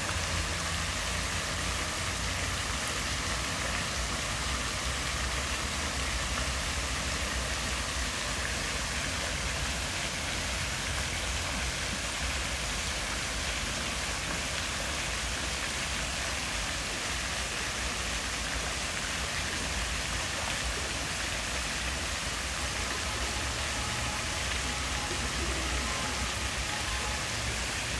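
Many small fountain jets splashing steadily into a pool, an even, unbroken hiss of falling water, with a steady low rumble underneath.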